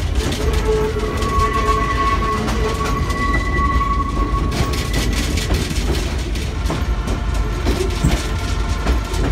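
Passenger train's steel wheels rolling on the rails: a steady low rumble with irregular clacks, and a high steady wheel squeal from the flanges on the curve that fades out about four to five seconds in.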